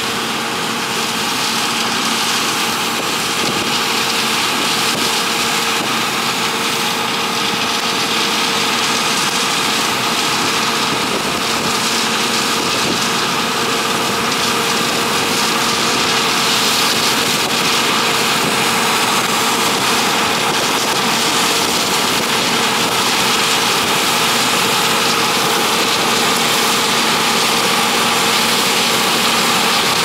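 1978 John Deere 6600 combine harvesting corn: the engine and threshing machinery run steadily with a constant hum under a dense mechanical rush. It grows a little louder over the first several seconds as the combine draws closer.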